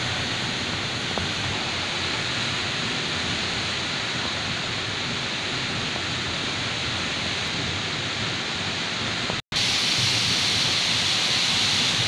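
Steady rushing of a tall, roughly 100 m waterfall falling into a pool. It breaks off for an instant about three-quarters of the way through, then carries on slightly louder.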